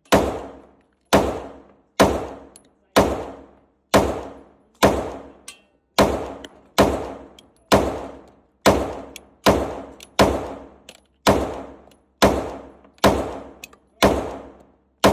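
Handgun shots fired at a steady slow pace, roughly one a second, about sixteen in all. Each crack trails off in a ringing echo.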